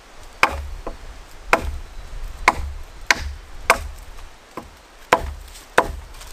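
A machete chopping into a fallen branch: a string of sharp, woody strikes, each with a dull thud, roughly one every half second to a second, some blows much lighter than others.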